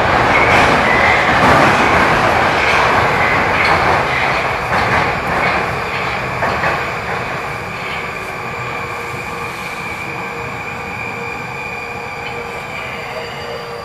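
Moscow-2020 (81-775/776/777) metro train heard from inside the car, slowing as it runs into a station. Loud wheel and rail noise with a few clicks over the rail joints fades gradually, leaving a steady whine of several tones.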